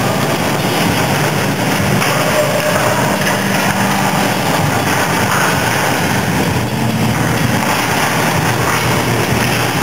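A steady, loud mechanical drone with an even hiss and a low hum, unchanging throughout.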